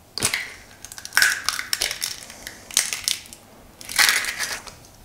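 Eggs being cracked into a stand mixer's stainless steel bowl: a handful of short, sharp cracks and crunches of shell, spaced about a second apart.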